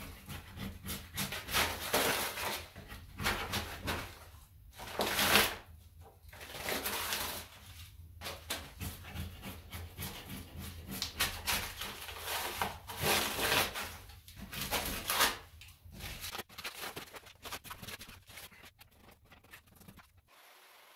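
Angle grinder with a wire brush scouring a wall, the scraping rising and falling in uneven bursts as the brush is pressed on and eased off, over the tool's steady motor hum. It stops abruptly near the end.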